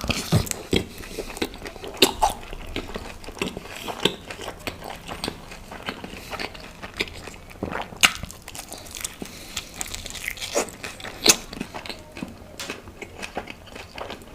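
A person biting into and chewing fried chicken momos, with a run of crunches and wet chewing clicks; the sharpest crunches come about 2, 8 and 11 seconds in.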